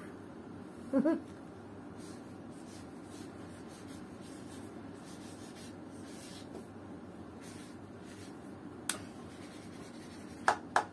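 Marker pen scratching faintly on paper as an answer is written, with a short voice sound about a second in and a few sharp clicks near the end.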